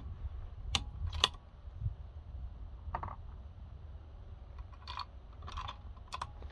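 Light clicks and taps, six or so spread out irregularly, the loudest about a second in, over a low steady rumble.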